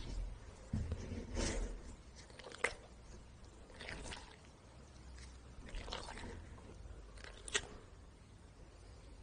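Sporadic soft squishes and clicks of large gelatin jelly balls being handled in gloved hands and held against a golden retriever's mouth, with a few sharp clicks, the loudest about two and a half seconds in and again late on.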